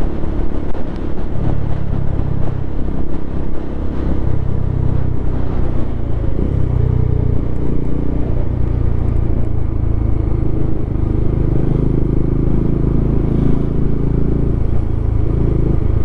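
Motorcycle engine running steadily at cruising speed, a low even drone with road noise.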